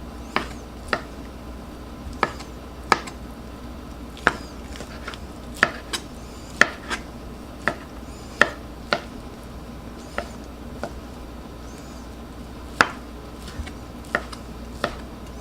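Kitchen knife chopping cooked rotisserie chicken breast into cubes on a cutting board: sharp knocks at an uneven pace, roughly one a second with short pauses.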